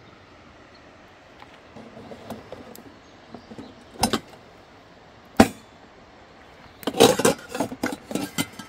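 Camp gear being handled: two sharp knocks a little over a second apart, then a longer run of clattering and clinking near the end.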